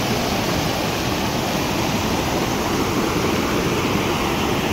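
Muddy floodwater of a mountain river in flash flood rushing over boulders: a loud, steady wash of water noise.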